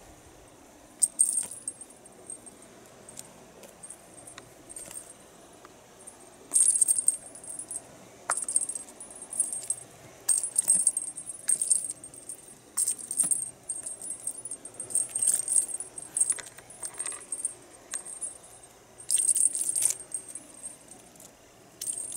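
Small bell on a cat-teaser toy jingling in short, irregular shakes, a dozen or so brief jangles with pauses between, the loudest about a second in, about a third of the way in and near the end.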